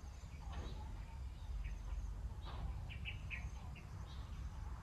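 Birds chirping, a handful of short high chirps with several in quick succession in the middle, over a steady low rumble.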